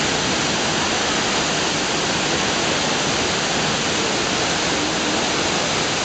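Shiraito Falls, a broad curtain of many streams falling about 20 m into its plunge pool, making a steady, unbroken rush of falling water.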